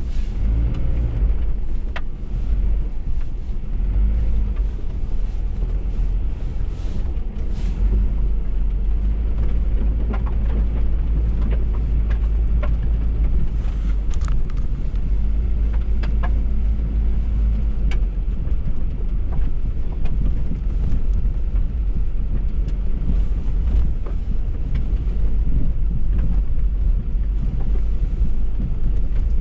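Car driving along a rutted dirt track: steady low engine and road rumble, with a few short knocks as the wheels go over the ruts.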